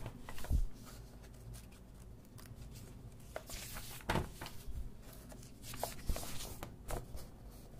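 Pages of a thick paperback book being flipped and the book handled: paper rustling with a few soft thumps, the strongest about half a second in and about four seconds in.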